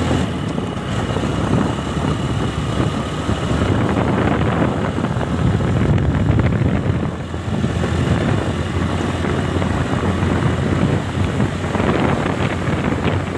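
Wind rushing over the microphone of a motorcycle riding at highway speed, with the motorcycle's engine running underneath in a steady rumble.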